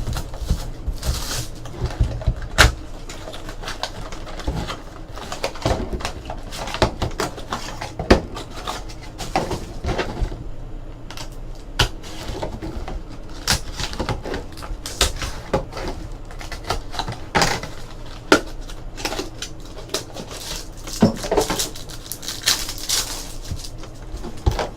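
2012 Panini Absolute Football card packs being opened and the cards handled: irregular rustling of wrappers with scattered sharp clicks and taps as cards and packs are set down on the table.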